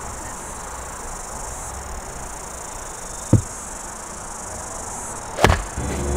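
Golf club striking a ball off a tee mat: one sharp crack about five and a half seconds in, with a dull thump a couple of seconds earlier. The strike is a shank. Insects chirr steadily throughout.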